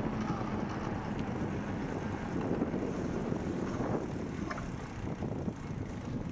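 Bicycle riding on a paved path: wind buffeting the microphone over the tyres' rolling noise, with a few light clicks and rattles. The noise eases somewhat in the second half as the bike slows.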